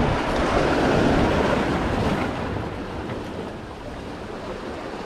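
Sea surf washing against the rocks, a wave swelling over the first couple of seconds and then fading.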